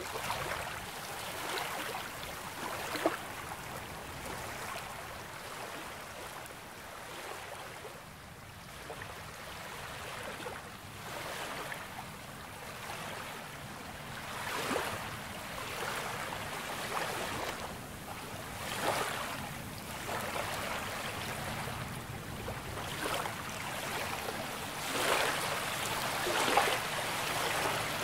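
Small waves breaking and washing up the shore of a calm bay, each wash a second or two long over a steady background of water. There is a quieter lull before the middle; the washes then come every couple of seconds.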